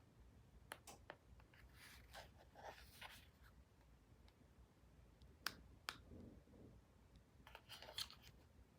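Near silence: room tone with a faint low hum, a few soft clicks and brief rustling.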